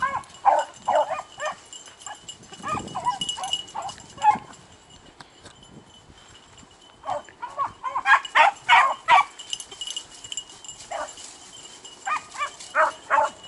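A pack of hunting beagles baying on a trail, their calls coming in ragged clusters. The voices die down for a few seconds in the middle, then pick up again thickly about eight seconds in.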